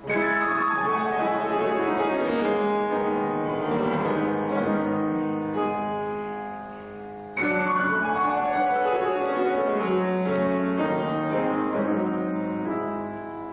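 Solo grand piano playing classical music: two similar phrases, each starting with a loud attack and falling through a downward run as it fades, the second entering about seven and a half seconds in.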